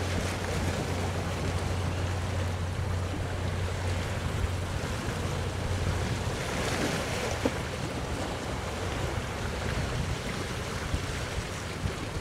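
Wind buffeting the microphone over the wash of the sea, with the low steady hum of a motor yacht's engine that fades out about halfway through.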